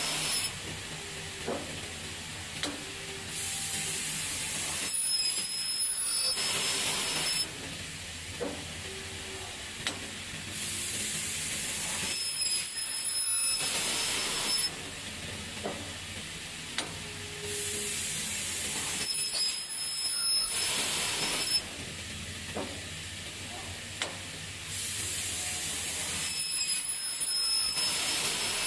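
Automatic CNC aluminium corner-connector cutting saw running its cycle over and over. Bursts of compressed-air hiss alternate with short high-pitched ringing, over a steady machine hum. The cycle repeats about every seven seconds, four times.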